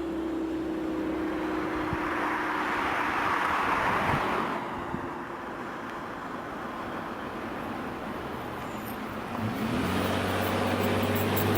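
Motor vehicle engines running on a road, dipping quieter in the middle; about two-thirds of the way in, an engine rises in pitch as a vehicle speeds up or approaches.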